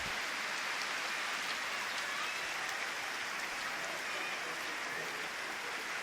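Steady rain falling: an even hiss with no let-up.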